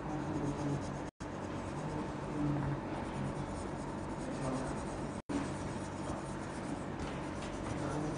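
Colouring on paper: a brown colouring pencil or crayon scratching back and forth in steady strokes. The sound drops out briefly twice, about a second in and about five seconds in.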